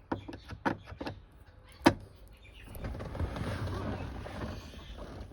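Hand work on car interior parts: a few light clicks and knocks, one sharper knock about two seconds in, then about two seconds of rustling and scraping.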